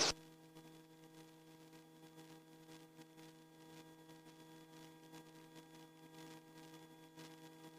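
Near silence with a faint steady hum, after a short click right at the start.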